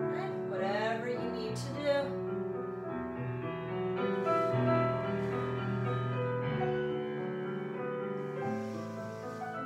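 Background piano music, slow, with sustained notes.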